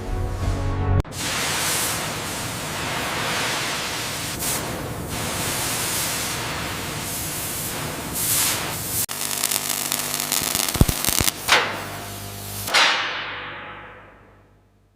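Loud steady hissing and crackling noise. About nine seconds in it breaks into a few sharp cracks over steady musical tones, then fades out near the end.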